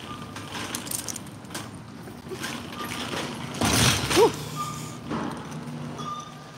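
Wire shopping cart rattling and clicking as it is pushed across a store floor, with a louder clatter and a short squeak about four seconds in.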